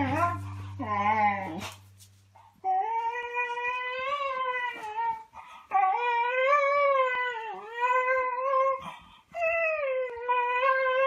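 Beagle whining and howling during rough play: a falling cry near the start, then three long, wavering high-pitched cries, each about two to three seconds, with short breaks between.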